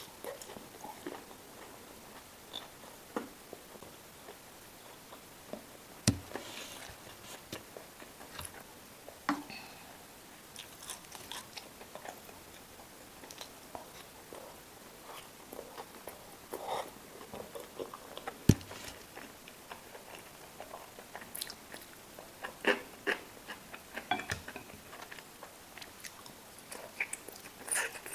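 A person eating close to the microphone: bites and wet chewing with some crunching, broken by scattered sharp clicks, two of them much louder than the rest.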